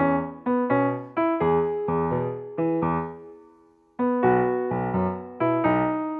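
Background music: a gentle keyboard tune of struck notes that each die away, with a short gap a little past the middle before the tune starts again.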